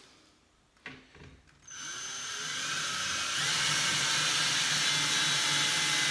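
Cordless drill driving a screw through a metal towel-bar bracket into a wooden board, its motor starting suddenly about two seconds in and running steadily.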